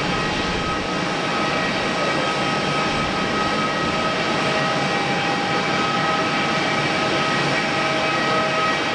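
Boeing 787-9 airliner's Rolls-Royce Trent 1000 jet engines running, a steady roar with a constant high whine on top.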